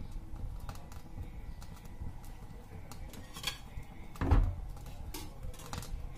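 Kitchen vessels and utensils being handled: scattered light clicks and taps, with a louder knock about four seconds in.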